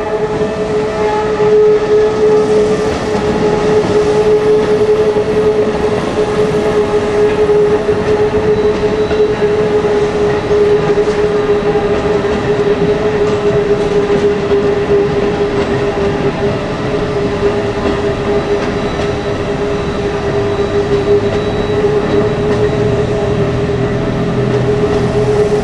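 Keikyu Airport Line train running over a railroad crossing, wheels rumbling on the rails, while the crossing's warning bell sounds a steady high tone.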